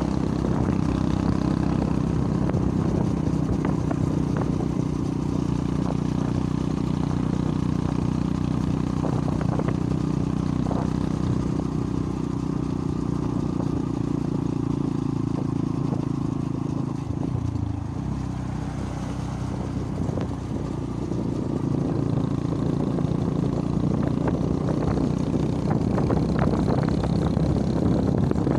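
Engine of a moving road vehicle running steadily under load, with road and wind noise. The engine note drops briefly about seventeen seconds in, then picks up again.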